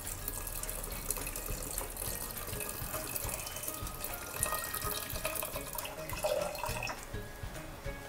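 A stream of water pouring into a pressure cooker onto soaked black urad dal and kidney beans, a steady splashing pour that stops near the end.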